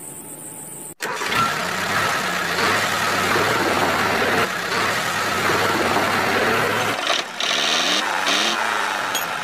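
Tractor engine sound starting abruptly about a second in and running steadily with a rough, dense noise, dropping out briefly around seven seconds.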